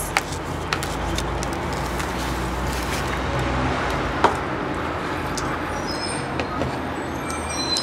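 Steady background rumble of street traffic, with a few light clicks and taps as a small plastic pot is handled to ease a succulent out of its potting soil.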